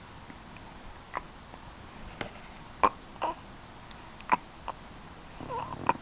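Baby hiccuping: about six short, sharp hiccups at uneven intervals of roughly half a second to a second, with a brief small vocal sound just before the last one.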